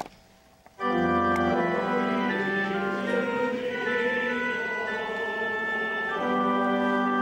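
Church organ starting about a second in and playing sustained full chords, with a deep bass note at the start and a chord change near the end.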